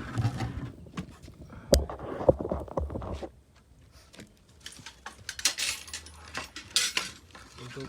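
Metal table saw parts and accessories being handled: a few sharp clinks and knocks in the first three seconds, then a stretch of rustling, scraping handling noise.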